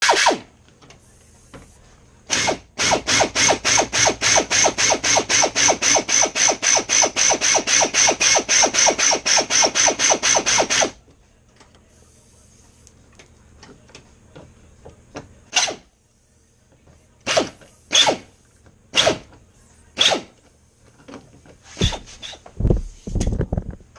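A power tool running in rapid, even pulses, about four or five a second, for some eight seconds before it stops. Afterwards come scattered sharp clicks and knocks of tools and door parts being handled.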